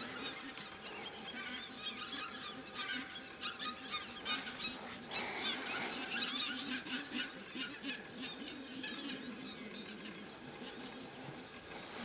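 Flock of white-fronted geese calling: many short, high calls overlapping, busiest in the middle and thinning out near the end.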